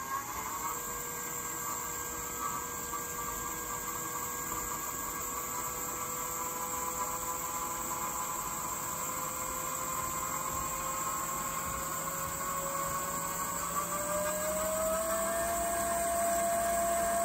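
Nova DVR XP wood lathe's direct-drive variable-reluctance motor running with a steady electric whine as its speed is stepped up on the keypad. The whine rises in pitch at the start, holds, then climbs again toward the end before settling at the higher speed.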